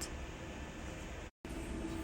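Faint steady hum and hiss of background noise, cut by a brief dead silence about a second and a half in.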